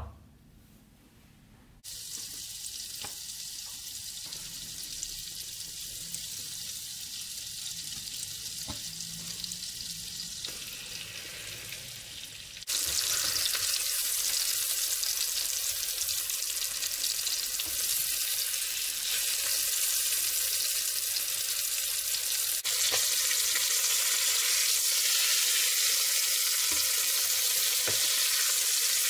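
Butter and oil sizzling in a hot frying pan, then louder steady sizzling from about halfway as floured chicken breast fillets fry in the foaming butter. A short knock at the very start as the butter cubes drop into the pan.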